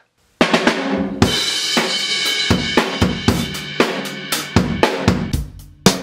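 Drum kit played in a groove around a homemade snare drum with a pine stave shell cut from a single 2x4 and synthetic gut snares, which give less of the snap of wire snares. A cymbal rings under the hits from about a second in and dies away near the end.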